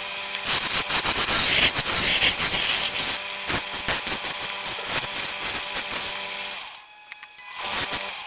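Wood on a spinning lathe being worked with a turning tool or sandpaper: a scratchy rubbing with many small clicks over a faint steady motor hum. It stops about seven seconds in, then comes back briefly near the end.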